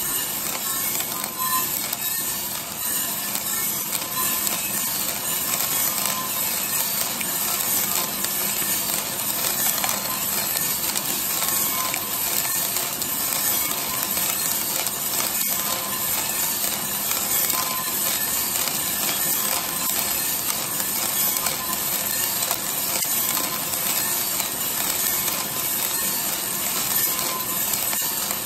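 Green coffee beans tumbling in the turning steel drum of a 3 kg Mill City coffee roaster, rattling against the drum and its clear plastic door in a dense, steady clatter of small clicks. A steady hum runs underneath.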